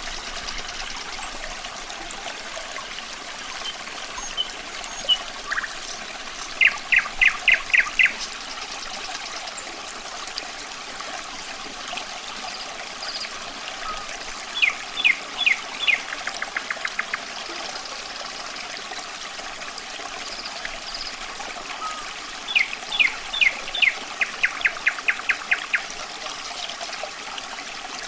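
Running water trickling steadily, with a nightingale singing three phrases of fast repeated high notes, one of them running into a quicker trill.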